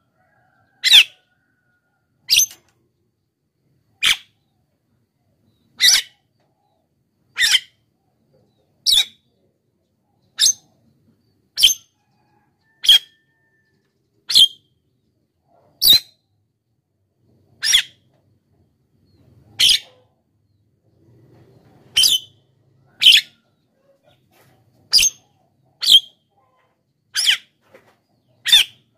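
Javan myna calling: about nineteen short, sharp, high-pitched calls, evenly spaced roughly a second and a half apart.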